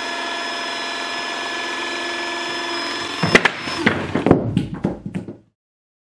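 The hydraulic pump of a Fameca SPCCS140WI cable spiking and cutting tool runs with a steady whine while the cutting head closes on a power cable. About three and a half seconds in, the whine stops amid sharp cracks and knocks as the blade goes through the cable, and the sound ends abruptly shortly after.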